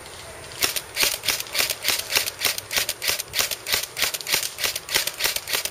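Airsoft gun firing a rapid string of single shots, about four a second, for about five seconds.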